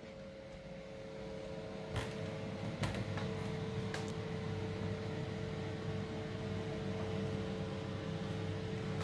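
Bathroom extractor fan humming steadily, growing louder over the first two seconds, with a few sharp clicks about two, three and four seconds in.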